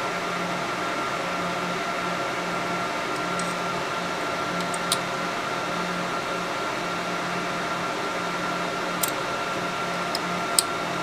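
Steady fan hum of a powered-on Epilog laser engraver, with a low hum that swells and fades about once a second. Three small sharp clicks come about five, nine and ten and a half seconds in, as a beam mirror's adjustment screw is turned by hand during alignment.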